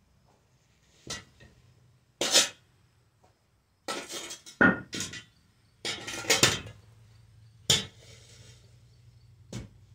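Metal shovel blade scraping and striking a hard-packed dirt floor in about seven short, separate strokes, with a few clanks of metal.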